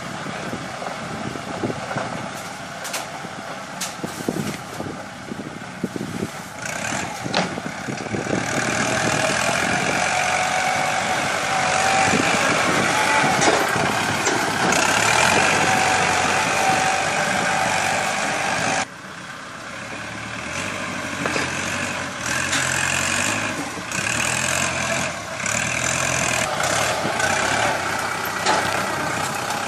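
Kubota compact tractor's diesel engine running under load as it pushes and grades soil with a front dozer blade. There are scattered knocks in the first several seconds, and the sound drops sharply for a moment about two-thirds of the way through.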